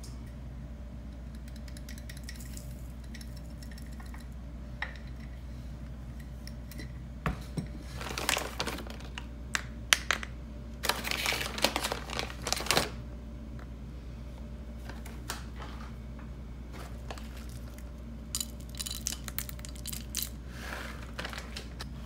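Light clicks, taps and scrapes of breakfast ingredients and a wooden spoon in a coconut-shell bowl, busiest about eight to thirteen seconds in and again near the end, over a steady low hum.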